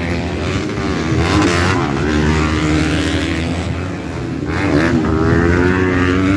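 250cc four-stroke motocross bikes racing on a dirt track, engines revving hard with the pitch rising and falling as the riders work the throttle over the jumps.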